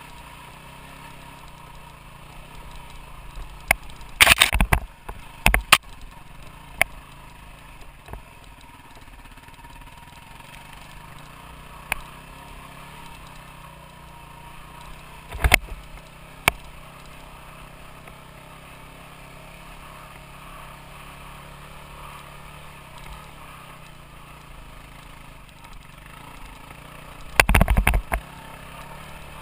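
Off-road motorcycle engine running steadily while riding a rough dirt trail, with scattered sharp knocks and rattles as the bike and camera jolt over the ground. The knocks are loudest in a cluster about four seconds in and in a burst near the end.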